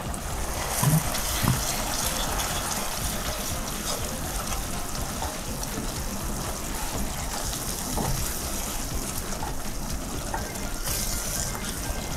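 Watery spice sauce simmering in a nonstick pan while a wooden spatula stirs it: a steady hiss of bubbling liquid, with a few soft knocks of the spatula about a second in.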